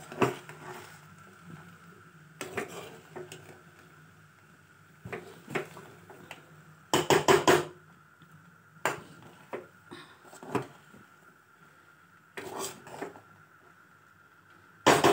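Steel spoon clinking and scraping against a steel pot as cooked rice is stirred gently, in scattered short knocks, with the loudest cluster about halfway through.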